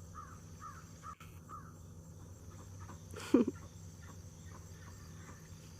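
Farmyard animal sounds: a run of soft, quick chirps about four a second, then one short loud call about three seconds in, over a steady low hum.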